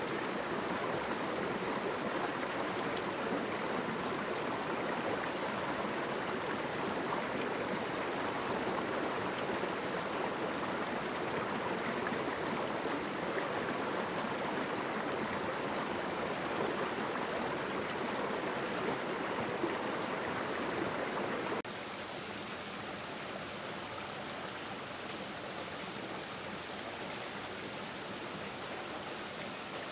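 Steady rush of running water, like a forest stream. About two-thirds of the way through it cuts abruptly to a quieter, thinner hiss.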